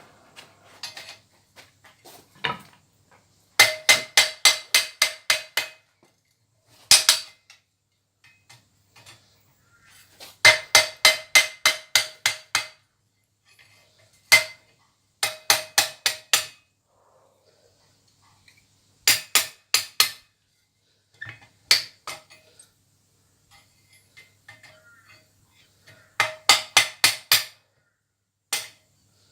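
Hammer blows ringing on steel, in quick runs of about five strikes a second with pauses between, as a pair of forged chain-making tongs is hammered to refine it and make the jaws sit tight.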